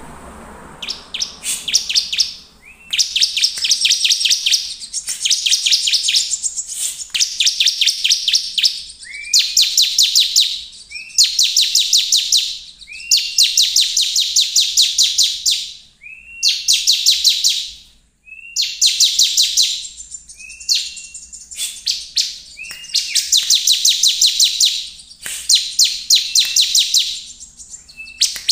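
Bar-winged prinia (ciblek) in full song: phrase after phrase of fast, dry, high trills, each a second or two long and many opening with a short rising note, separated by brief pauses.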